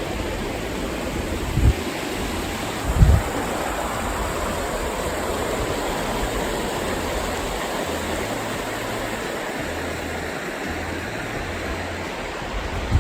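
Steady rush of the Virgin River's flowing water, with two dull low thumps about two and three seconds in.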